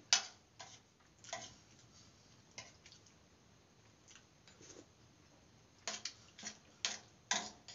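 Eating sounds of vegetable biryani eaten by hand: scattered short wet clicks and smacks of chewing and handling the rice, coming quicker in the last two seconds.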